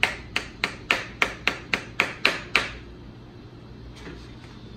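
Hammer tapping the end cap onto a homemade pool-noodle slip float: about ten quick, sharp strikes, roughly three a second, then a pause and one more strike near the end.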